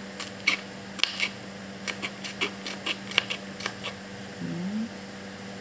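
Kitchen knife slicing garlic cloves on a plastic cutting board: a quick, uneven series of sharp taps as the blade comes down on the board, lasting about four seconds, then stopping.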